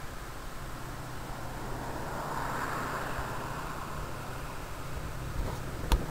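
VIA Rail diesel locomotive running as it approaches, a low engine drone under a steady hiss, with one sharp click near the end.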